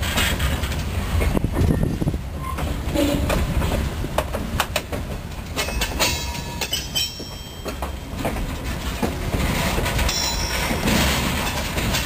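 Covered grain hopper cars rolling slowly past, their steel wheels clacking and knocking over the rail joints of a newly installed track switch, with brief high wheel squeals a couple of times.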